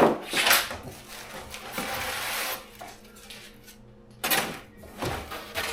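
Handling noise while unpacking a metal rolling tool chest: styrofoam and cardboard packaging being pulled and rubbed off it, with scrapes and light clatter in several short bursts.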